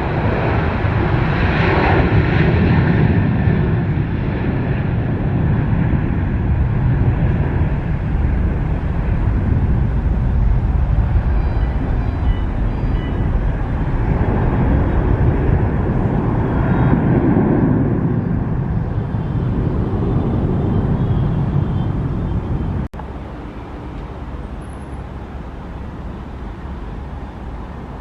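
Jet airliner engines running loud, a steady rumble and roar that swells twice. It cuts off abruptly about 23 seconds in, leaving a quieter steady background noise.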